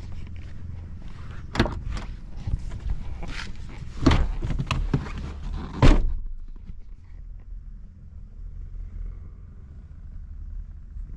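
Footsteps, then a car door being opened and the driver getting into a 2005 Mini Cooper R50, several knocks and clicks ending in the door shutting with a sharp thunk about six seconds in, the loudest sound. A steady low hum, the car's 1.6-litre petrol four-cylinder idling, runs underneath and carries on in the cabin once the door is shut.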